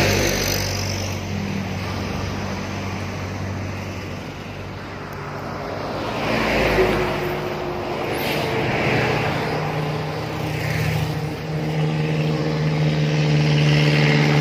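Road traffic at a bend: diesel trucks and motorcycles pass with a steady low engine drone. The low engine tone of an approaching bus grows louder near the end.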